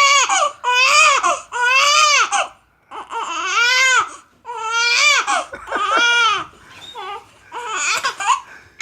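A young girl crying hard in a string of wailing cries, each about a second long and arching up and down in pitch, with short catches of breath between them; she is upset by a bout of hiccups.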